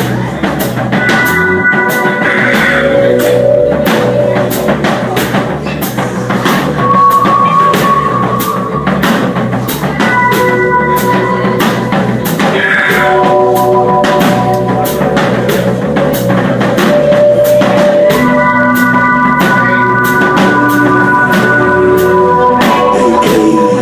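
Live band playing, with a drum kit keeping a steady beat under held guitar notes.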